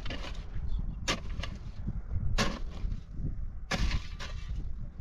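A series of sharp strikes, about five in all at irregular intervals of roughly a second, like a hand tool hitting earth or stone. A low rumble runs underneath.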